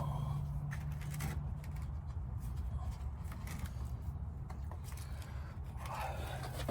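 Hands working with materials: scattered small clicks, scrapes and rustles over a low steady rumble, with a louder scrape near the end.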